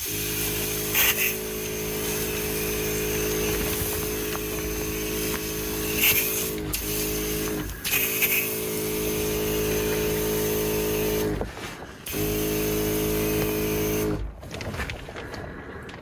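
A small electric motor running in stretches, its pitch dipping as it winds down and picks back up about four times, with a longer stop near the end.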